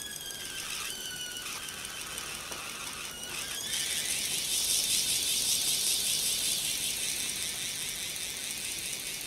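Brass Hero's engine (aeolipile) spinning under steam, giving a high wavering squeal that slides in pitch; about four seconds in this gives way to a louder, steady, high hiss of steam.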